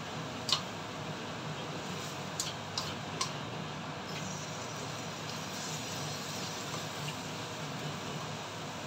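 Spatula knocking and scraping against a nonstick frying pan as diced bacon is stirred: four sharp clicks in the first few seconds, the first the loudest, over a steady hiss.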